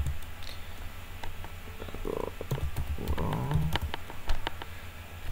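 A handful of computer keyboard keystrokes typing a word, bunched in the middle, with the sharpest tap about four seconds in, over a low steady hum. Two short low hums, voice-like, come between the taps.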